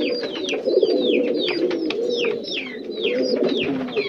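Pigeons cooing, several at once, with many short high chirps that fall in pitch, a few each second, over the coos.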